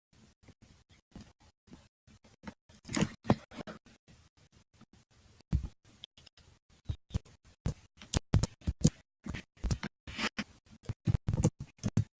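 Keyboard keys clicking as someone types, in irregular runs of quick taps that grow busier in the second half.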